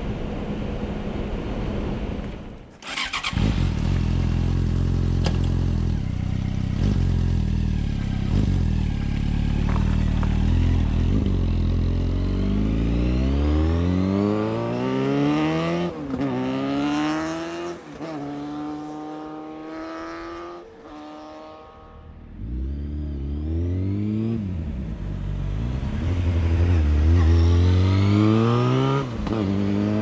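Yamaha FZ6 Fazer's 600 cc inline-four engine. It opens with a few seconds of in-helmet riding noise through the stock exhaust. After a short break it runs at a steady low note, then accelerates hard through the gears, the revs rising and dropping back at each upshift, with another run of rising revs near the end.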